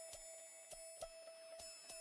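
Ultra-high-pitched tinnitus-relief tone: a loud, steady, very high whistle near the top of hearing, struck anew about six times with light chime-like attacks, over a faint lower steady tone.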